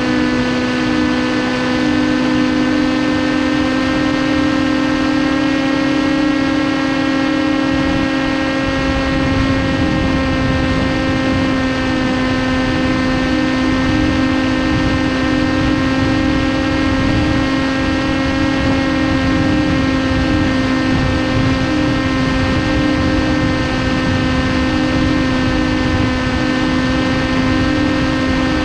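TBS Caipirinha 2 flying wing's electric motor and pusher propeller running at a steady, unchanging pitch in cruise, with wind rushing over the onboard camera's microphone, the wind growing stronger about eight seconds in.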